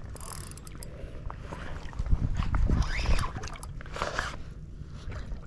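Shallow water splashing and sloshing around a wading angler as a hooked fish is played, with wind rumbling on the microphone, heaviest about two to three seconds in.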